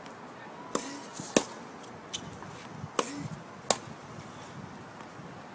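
Tennis ball being hit by racket strings and bouncing on the hard court during a rally: sharp pops in two pairs, the loudest about one and a half seconds in, the second pair about three seconds in.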